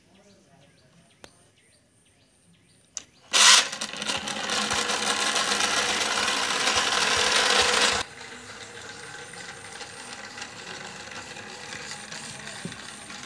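Small DC motor of a homemade toy electric rickshaw switched on with a click about three seconds in, then whirring steadily as the toy drives along. About eight seconds in the sound drops suddenly to a quieter, steady whir.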